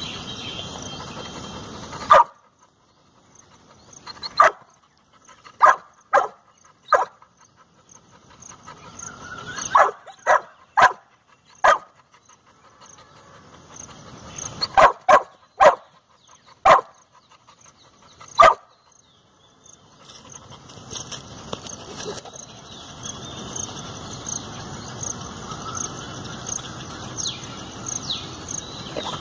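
A dog barking: about fifteen short, sharp barks, some single and some in quick runs of two or three, spread over the first eighteen seconds or so.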